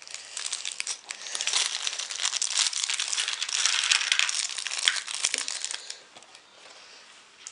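Small clear plastic bag of LEGO pieces crinkling as it is handled, with many small clicks; it dies down about six seconds in.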